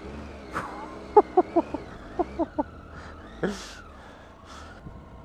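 Triumph Tiger 800 XC's 800 cc three-cylinder engine running at low revs, its pitch wavering with small throttle changes on a slow, slippery trail. About a second in come two quick runs of short pitched chirps, three or four each, and a couple of sharp knocks.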